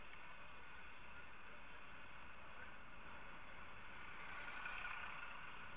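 Steady traffic and riding noise picked up by a camera on a moving bicycle, swelling briefly about four seconds in as a city bus passes close alongside.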